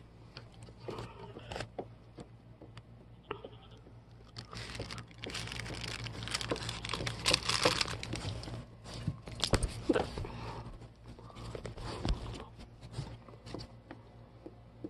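Puppy chewing a hard pretzel: irregular crackly crunches that come thickest in the middle stretch.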